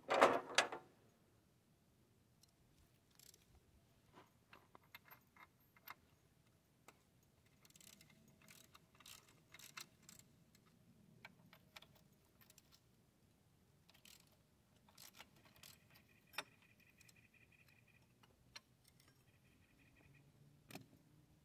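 Socket ratchet clicking in short, irregular runs as it works the grease fitting on a mini excavator's track tensioner, with a louder handling clatter at the very start.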